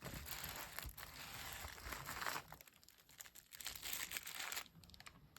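Wrapped firecracker bricks being handled, their paper packaging crinkling and rustling in two stretches, the second one shorter.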